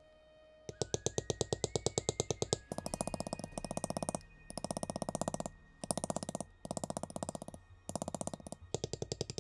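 Leather stamping tool struck rapidly with a mallet, tapping about ten times a second in runs of about a second with short pauses, as it is walked along the carved lines of vegetable-tanned leather to bevel them.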